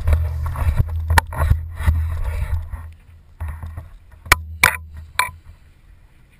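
Water churning and rushing right at the microphone as a yellowtail is gaffed alongside the boat. A few sharp knocks follow in the last couple of seconds as the gaff and fish are hauled up against the boat's rail.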